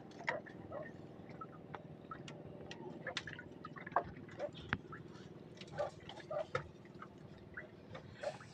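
Water dripping and splashing lightly as a fishing hand line is pulled up out of the sea by hand, with scattered small clicks and knocks over a faint steady low hum.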